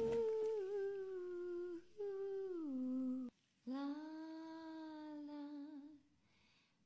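A high voice humming a soft, slow melody in long held notes, in three phrases with short breaks between them, the second phrase sliding down in pitch.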